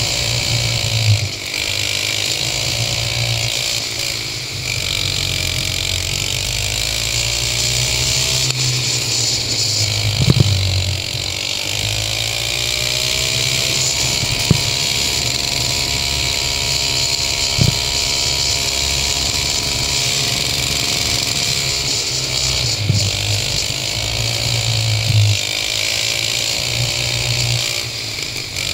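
Go-kart engine heard from on board, its pitch repeatedly falling and rising as the kart slows into and accelerates out of corners. A few sharp knocks come along the way.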